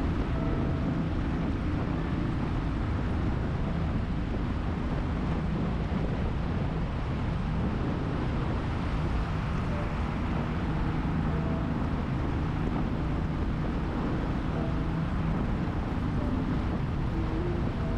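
Royal Enfield Thunderbird 350's single-cylinder four-stroke engine running steadily at cruising speed inside a road tunnel.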